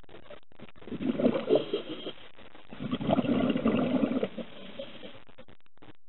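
Scuba diver's exhaled bubbles from a regulator, heard underwater: two bubbling bursts, each a second or more long, the first about a second in and the second about three seconds in.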